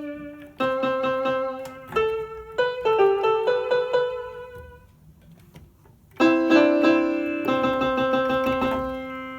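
Rock Jam RJ-661 electronic keyboard playing in its vibraphone voice: a few notes struck one after another, each ringing and fading, then a short pause and a held chord about six seconds in that slowly dies away.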